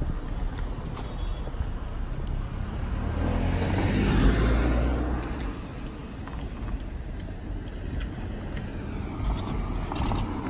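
A car driving past, growing louder to its loudest about four seconds in and then fading away by about six seconds.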